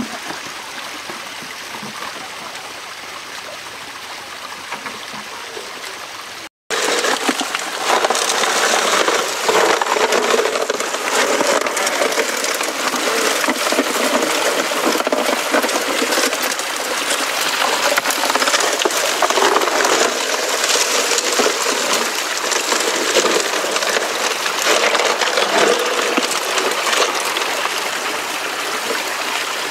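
Pump-fed water rushing steadily down a Gold Hog Mini highbanker's aluminium sluice box over its screen and matting. It is quieter at first and louder after a brief break about six and a half seconds in.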